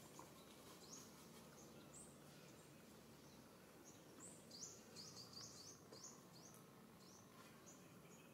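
Near silence: faint outdoor ambience with scattered short, high bird chirps, most of them about four to six seconds in.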